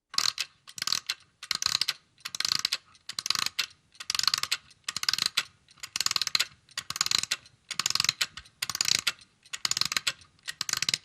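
A small mechanism clicking rapidly in repeated strokes, about one stroke a second, each stroke a quick run of fine ratcheting clicks.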